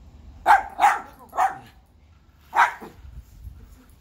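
Schnauzer barking: three sharp barks in quick succession, then one more about two and a half seconds in.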